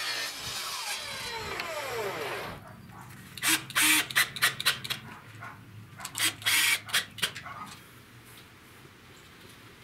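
Table saw blade spinning down after a cut through a pine board, its whine falling steadily over about two seconds. Then a cordless drill driving screws through a wooden strip into wire fencing, in two runs of short bursts.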